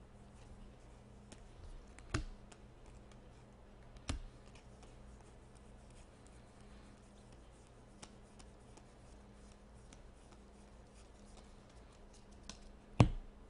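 Baseball cards being flipped through by hand: faint scattered card flicks and slides, with three sharp taps about two, four and thirteen seconds in, the last the loudest. A low steady hum sits underneath.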